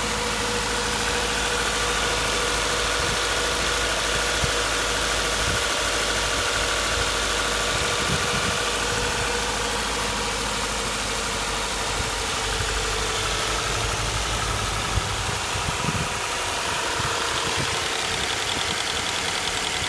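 Subaru FB25 2.5-litre flat-four engine idling steadily with a ticking knock from the motor, the clatter the owner is recording as a fault.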